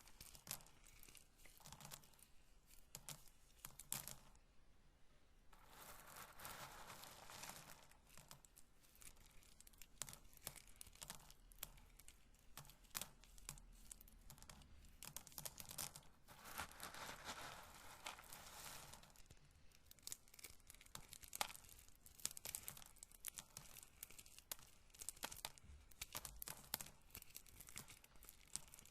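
Roasted corn kernels handled close to the microphone: many small dry clicks and rattles as they are touched and dropped, with two longer stretches of rubbing about six seconds in and again around sixteen seconds.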